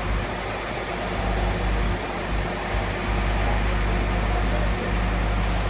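Crane truck's diesel engine running steadily, with a low even hum, while its boom swings a hanging load.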